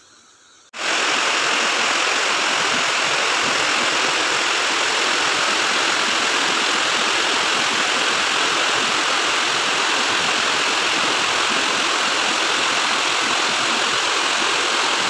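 Rushing water of a steep mountain stream cascading over rocks: a loud, steady rush that cuts in suddenly under a second in.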